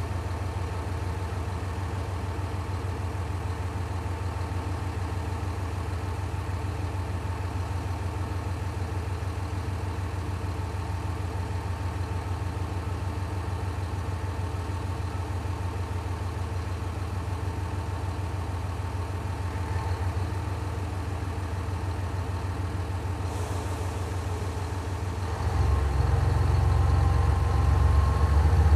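Diesel express railcar's underfloor engine idling steadily at a station platform, a low even hum. About 25 seconds in the engine sound grows clearly louder and heavier, as the engine revs up or a second diesel train draws in.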